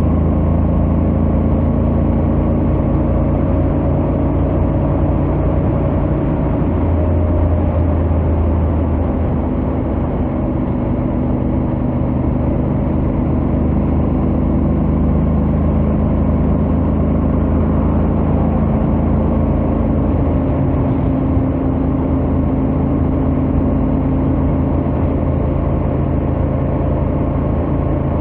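Honda X-ADV 750's parallel-twin engine and stock exhaust running steadily at highway cruising speed, under a steady rush of wind and road noise. The engine note shifts slightly a few seconds in, then holds steady.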